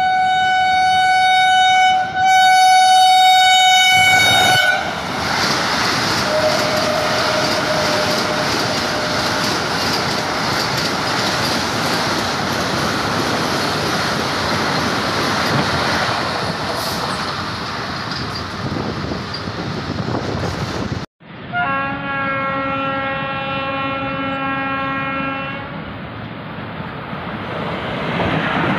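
A train horn sounds for about four and a half seconds, then a Vande Bharat express passes at speed with a steady rush of wheels on rail. After a sudden cut, a lower horn from an Indian electric locomotive sounds for about four seconds, and the rail noise builds again as the locomotive and its coaches come through near the end.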